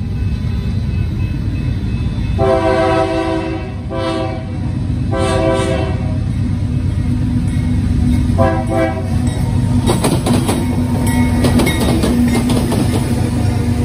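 Union Pacific diesel freight locomotive sounding its multi-tone air horn in four blasts for a grade crossing, the first and third long. The lead locomotives then pass close, with a steady engine drone and wheels clicking over the rails.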